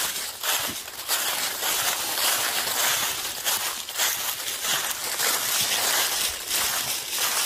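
Footsteps walking through thick dry fallen leaves: a continuous rustle with a crunch at each step, about every half second.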